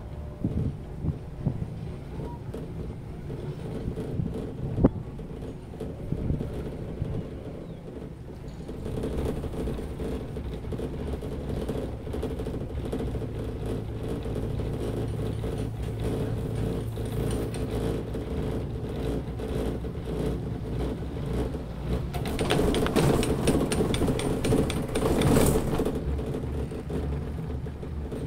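Cable car gondola running along its rope, heard from inside the cabin: a steady hum and whir, growing louder and rougher for a few seconds about three-quarters of the way through.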